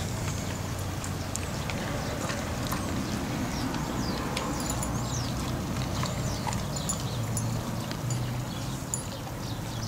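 An English Coonhound chewing and gnawing a rawhide chew, with repeated small clicks and smacks.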